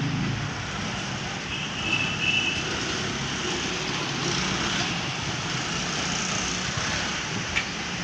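Steady background traffic noise, with a brief high beeping tone about two seconds in.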